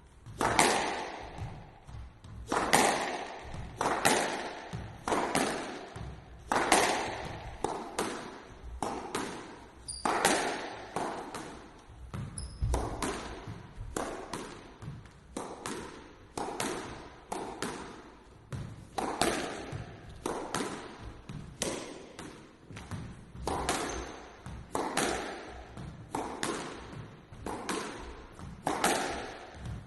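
A squash ball hit repeatedly by one player's racket against the court wall. There is a sharp, echoing strike about every second and a quarter, with lighter knocks of the ball off wall and floor in between.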